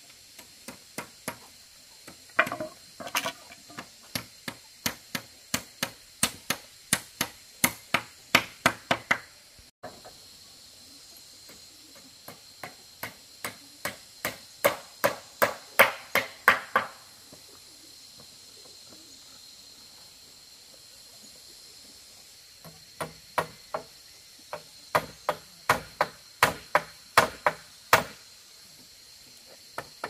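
Repeated blows of a tool on wood, about two to three a second, in three runs with short pauses between them; the middle run grows louder toward its end.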